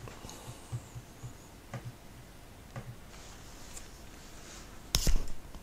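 Quiet room tone with a faint low hum and a few soft ticks, then a single sharp knock about five seconds in, followed by brief rustling.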